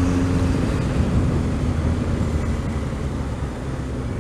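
Motorcycle engine running under way with rushing wind noise over it; the engine note eases back and gets a little quieter as the rider comes off the throttle.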